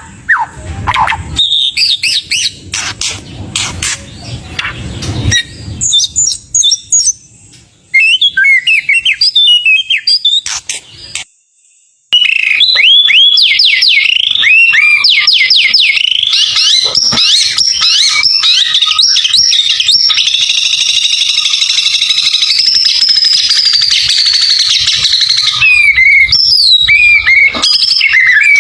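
White-rumped shama (murai batu) singing a loud, varied song: quick rising whistled notes and rapid trills, with knocks in the first few seconds. The song breaks off briefly about eleven seconds in, then runs on without pause.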